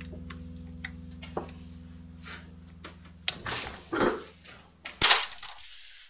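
A held chord of background music dies away a little past halfway, followed by a few sharp knocks and clinks, the loudest about four and five seconds in.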